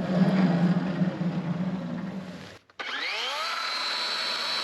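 Band sawmill machinery running: a low steady hum fades and cuts off about two and a half seconds in, then the mill's motor winds up, rising quickly in pitch, and settles into a steady high whine.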